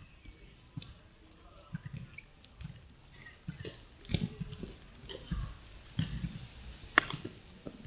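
Scattered low thuds and light knocks, like feet moving on the ground, with one sharp smack about seven seconds in that is the loudest sound.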